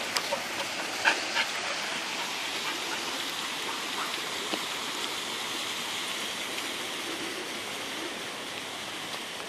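Steady rush of water running through the channel beside a canal lock, even throughout, with a few faint short clicks in the first second and a half.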